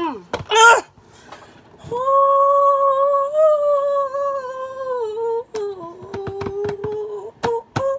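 A woman's voice holding one long, steady humming note, then dropping to a lower held note about five and a half seconds in, with a few sharp clicks near the end.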